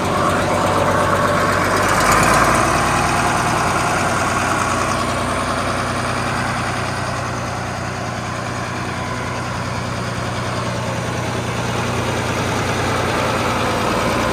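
Fendt Favorit 610 LS tractor's diesel engine running steadily, swelling briefly about two seconds in.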